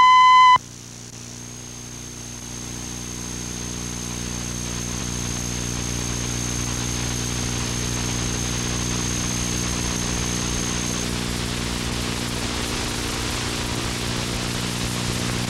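Reference tone from a VHS program slate that cuts off about half a second in. A steady electrical hum and tape hiss follow, with a thin high whine that stops about eleven seconds in.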